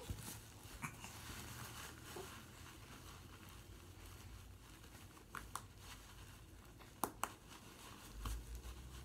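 Faint rustling and crinkling of a baby's clothes being handled as she is dressed, with a few short clicks, two close together about seven seconds in.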